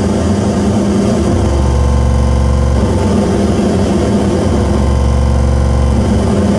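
Live electronic noise music: a loud, dense drone with a heavy low rumble and layered buzzing tones, its texture shifting about three seconds in and again near the end.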